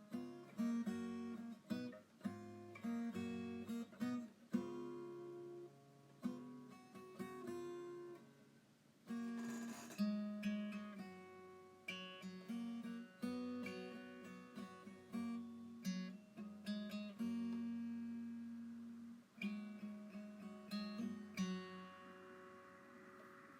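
Background music of acoustic guitar, plucked and strummed notes and chords that start sharply and fade.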